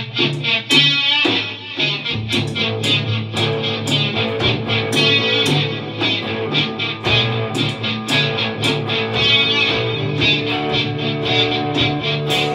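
Live rock band playing in 1960s style: two electric guitars, one Stratocaster-style and one Les Paul-style, over a Gretsch drum kit keeping a steady beat on the cymbals.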